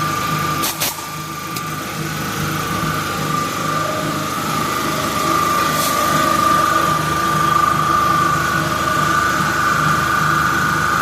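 A machine running steadily with an even high whine over a pulsing lower hum, with a couple of sharp clicks about a second in.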